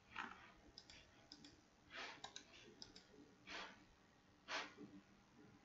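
Faint computer mouse clicks, a handful scattered through the first three seconds, among four short, soft breaths out through the nose or mouth.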